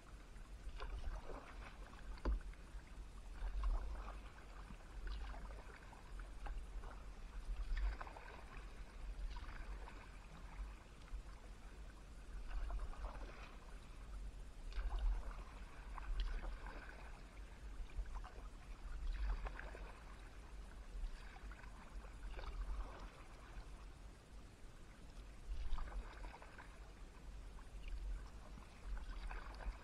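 Kayak paddle strokes: the blades dip and splash into calm water in a steady rhythm, about one stroke every second and a half, over a low rumble.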